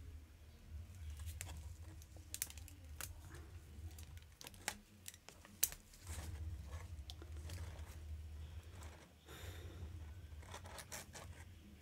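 Hands working a fashion doll free of its box packaging: scattered small clicks, rustles and scrapes of plastic and cardboard, with a longer rustle about nine seconds in, over a low steady hum.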